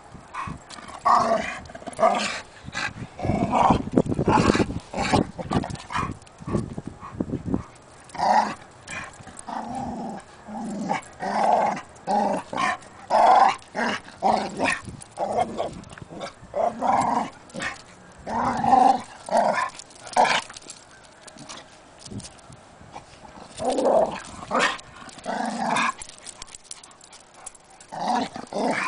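A Chow Chow and a West Highland White Terrier growling in play as they wrestle: a long run of short growls with brief pauses between them.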